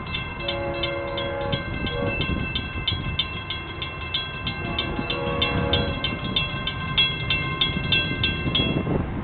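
Grade-crossing warning bell ringing steadily at about four strokes a second, falling silent near the end. Two distant train horn blasts, each lasting a second or more, sound over it: one just after it starts and one about five seconds in, from the approaching locomotive.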